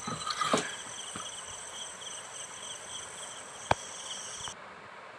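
Crickets chirring steadily with a fast pulsing trill, cutting off suddenly near the end. A short clatter of handling about half a second in and a single sharp click a little after three and a half seconds.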